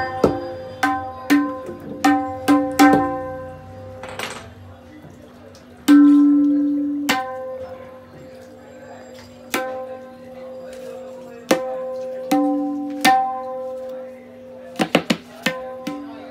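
Handmade wooden dayan (treble tabla) being tuned and tested. Small-hammer taps and single open strokes ring out at a clear, steady pitch. The strikes come quickly at first, then spaced out with long rings, and three quick strokes come near the end.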